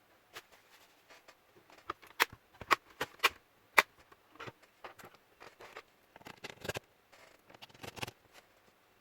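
Sharp clicks and light knocks of plastic laptop parts being handled as the display is fitted back onto the laptop's base. The loudest strikes come between about two and four seconds in, followed by softer scraping.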